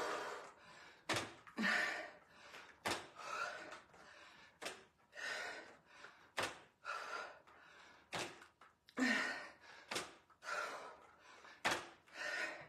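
A woman breathing hard through sumo deadlift high pulls with a pair of dumbbells: each rep brings a short knock of the dumbbells, then a hard, gasping breath as she pulls. The cycle repeats about every second and three-quarters, seven times.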